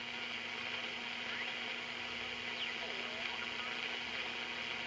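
Static hissing from a Panasonic RF-2900 shortwave receiver tuned across an amateur band with its BFO on, with a few faint whistles sliding in pitch as the tuning passes weak carriers. No station comes through strongly enough to copy.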